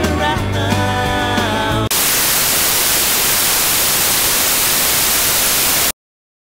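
Rock music cuts off about two seconds in and is replaced by a loud hiss of TV-style white-noise static, which stops abruptly near the end.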